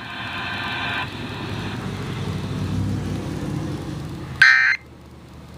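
Low rumbling noise, then about four and a half seconds in a short, loud electronic squawk: the first of the three Emergency Alert System end-of-message data bursts that close the alert broadcast.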